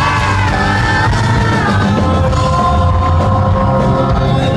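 Rock band playing live, heard loud and rough through a phone's microphone: a steady low-end bed under held, sliding melodic notes, with no sung words.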